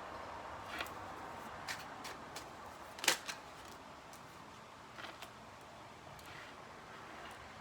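Tarot cards being shuffled and handled, a string of short card snaps and taps, the loudest about three seconds in, over a faint steady hiss.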